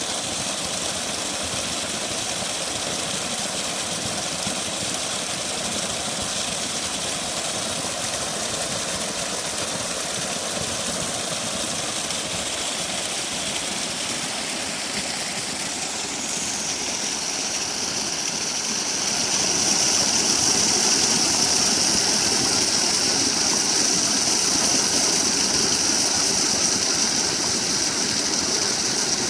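Waterfall: steady rushing of falling water, growing louder and more hissing from about 17 seconds in.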